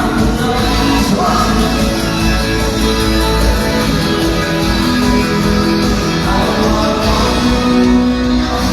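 Loud rock and roll music with singing over a steady bass line.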